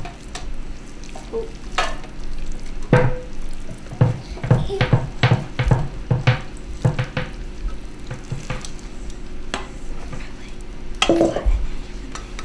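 A spoon scraping and knocking against a mixing bowl and a metal loaf pan as meatloaf mixture is transferred, in irregular clinks and thuds with a few louder knocks.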